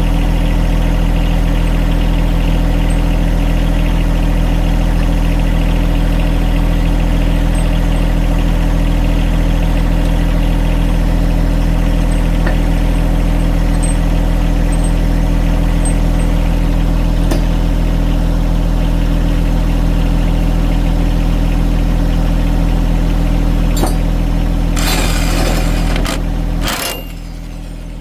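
An engine idling steadily. Near the end comes a brief burst from an electric hammer drill running the mower blade bolt, and after it the hum drops in level.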